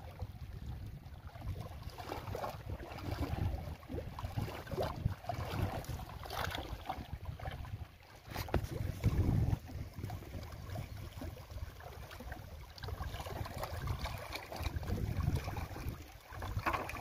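Wind buffeting the microphone in gusts, over the wash of lake water lapping against shore rocks; one stronger gust comes about 9 s in.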